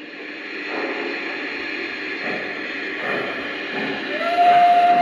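Lionel Visionline Class A model steam locomotive's sound system: a steady hiss, then about four seconds in a whistle starts blowing, one held tone that carries on.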